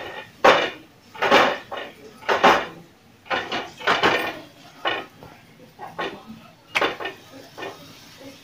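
Kitchen utensils knocking and scraping while a paratha is made: about ten irregular strokes, roughly one a second.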